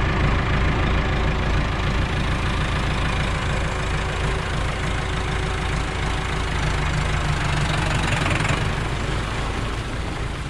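Landini 8880 tractor's Perkins diesel engine running steadily, with its low, even beat.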